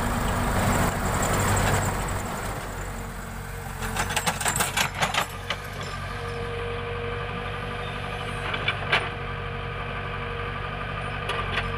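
Backhoe's diesel engine running, louder for the first couple of seconds and then settling to a steady idle. A few sharp knocks come about four to five seconds in.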